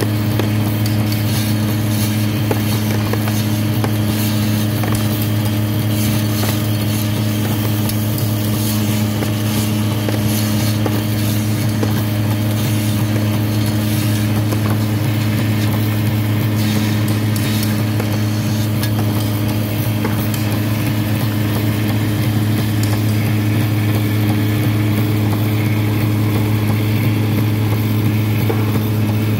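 Machine cutting grooved slate chips, running steadily with a loud low hum and a constant light crackle of cutting and chips dropping.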